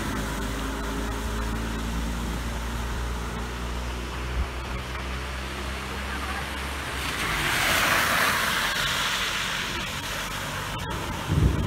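Cars driving through shallow floodwater on a road. An engine hums at low speed as one car pulls away. Then, about seven to ten seconds in, a second car's tyres push through the water with a spraying hiss that swells and fades.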